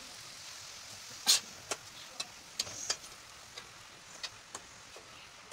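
Chopped tomatoes and onions sizzling in a steel pot on a gas stove, then a ladle knocking and scraping against the pot as they are stirred, with one sharp clink about a second in the loudest.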